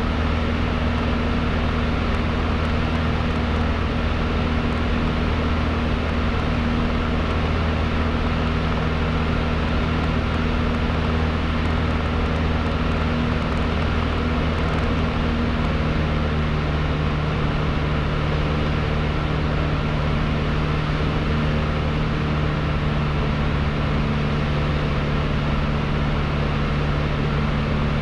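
Cessna 152's four-cylinder Lycoming engine and propeller droning steadily in cruise flight, heard inside the cabin together with airflow noise. The engine note shifts slightly about halfway through.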